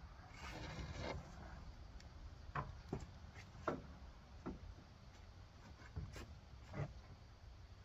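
Faint, scattered knocks and taps on wood, about half a dozen spread out, with a short rustle about half a second in, from someone moving about and working on a timber roof frame.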